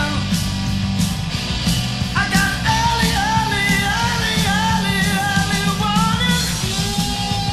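Rock band recording: a high lead melody bending and wavering in pitch over steady drums and bass.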